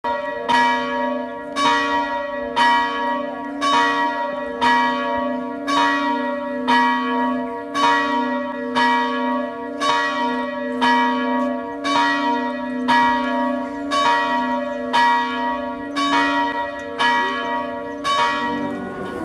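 Church bell ringing steadily, about one stroke a second, each stroke still ringing as the next one falls.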